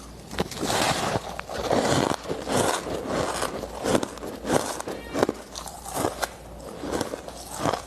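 Ice being bitten and chewed close to the microphone: repeated crunching and crackling as the pieces break between the teeth, in uneven strokes about one to two a second.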